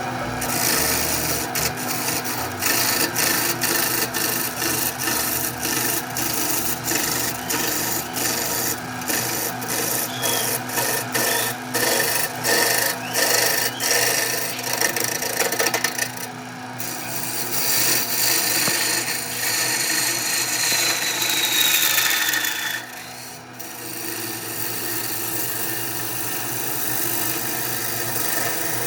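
A tool rasping wood in quick, repeated strokes, then a steadier scraping. Midway a thin whine falls slowly in pitch before a short lull.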